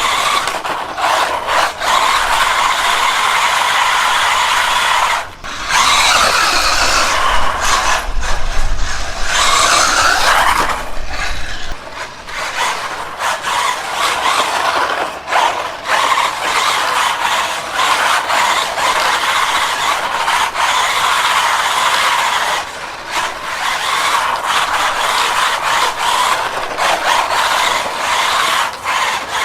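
1/16-scale SG-1603 RC drift car driving, its electric motor and freshly rebuilt gear drivetrain running steadily with a few brief breaks. The owner calls it definitely so much quieter.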